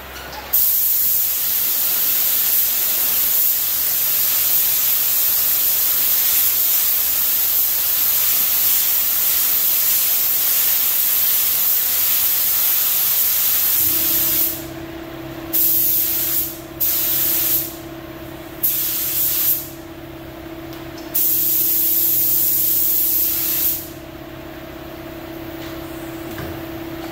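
Air-powered paint spray gun hissing as base coat is sprayed: one long continuous pass of about fourteen seconds, then four shorter trigger pulls of one to two seconds each, stopping about 24 seconds in. A steady low hum comes in halfway through and keeps going.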